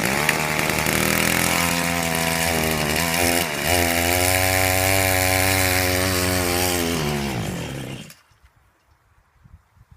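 Two-stroke chainsaw engine powering a homemade minibike catches on a push start and runs at high revs, dipping briefly about three and a half seconds in, then falling off and stopping about eight seconds in. It doesn't quite have enough steam to move the bike; the clutch smokes, probably mostly burnt up.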